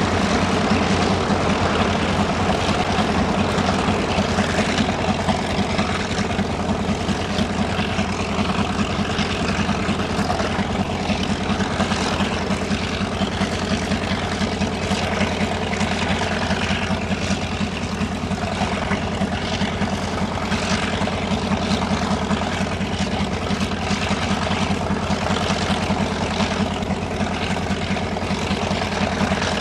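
Grumman TBM-3E Avenger's 14-cylinder Wright R-2600 Twin Cyclone radial engine running steadily at idle, its propeller turning, with an even rumbling beat that holds the same pitch throughout.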